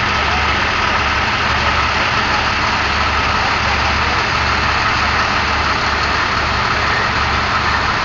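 A heavy engine running steadily, with a low rumble that swells and drops irregularly.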